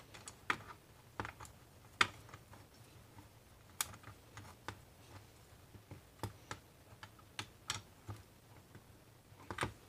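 Faint, scattered clicks of a socket ratchet as the nut on the rear brake arm's pinch bolt is run down and tightened.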